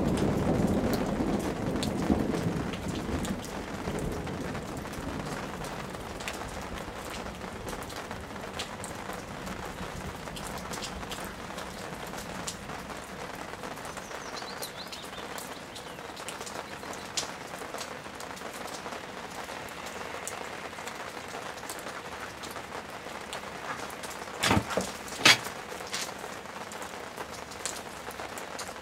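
Thunderstorm: the tail of a thunder rumble dies away over the first few seconds, leaving steady rain with many individual drops ticking close by. Near the end, two sharp knocks come close together.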